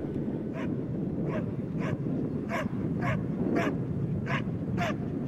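Dog barking steadily, about two barks a second, while it guards an object against men walking up to it.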